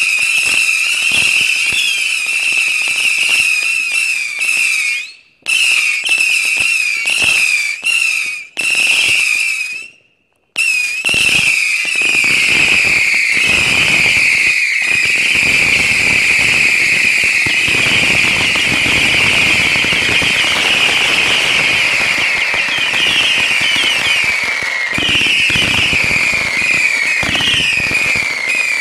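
Ground firework fountains burning, giving off a shrill whistling made of many short falling whistles over dense crackling and popping that thickens about twelve seconds in. The sound cuts out briefly a few times, near five, eight and ten seconds in.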